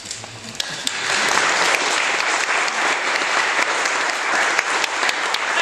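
Audience applauding: many hands clapping, building about a second in and then holding steady.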